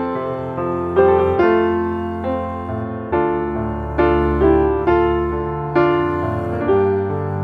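Background piano music: gentle chords struck about once a second, each fading away before the next.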